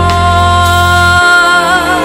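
Music: a long held melodic note over a steady low bass note, the note wavering in pitch near the end.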